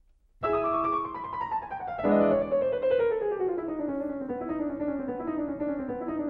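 Background piano music: a melody of notes descending steadily in pitch, starting about half a second in.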